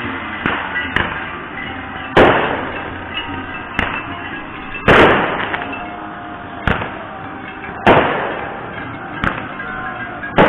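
Fireworks going off: about nine sharp bangs at uneven intervals, the loudest about two, five and eight seconds in, each fading away over a second or so, over a steady background din.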